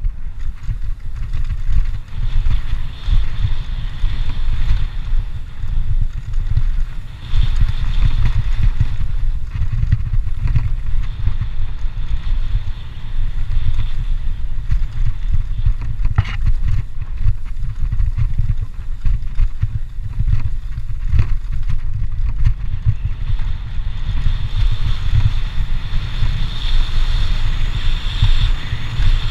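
Wind buffeting the action camera's microphone over the rumble and rattle of a cross-country mountain bike's tyres and frame on a dirt forest trail, with a couple of sharp knocks in the second half.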